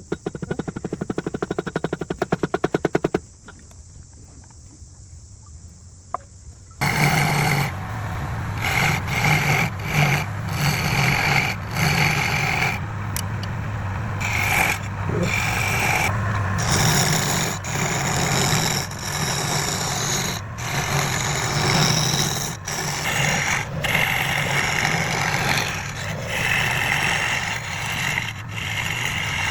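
Wood lathe work: rapid even ticking at first, then a quieter stretch, then from about seven seconds in a loud rasping, scraping noise of a turning tool cutting the spinning wood.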